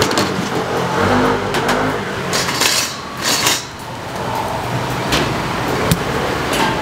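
Busy street-market background noise, with a motor vehicle passing about one to two seconds in and a couple of sharp clicks later on.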